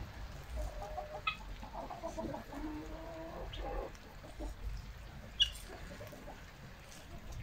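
Domestic hens clucking and giving drawn-out low murmuring calls as they forage, with a few short high chirps; one sharp high chirp about five seconds in is the loudest sound.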